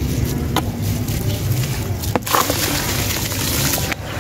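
Sand-cement chunk being dipped and worked by hand in a tub of water, with a few sharp clicks about half a second and about two seconds in, over a steady low rumble.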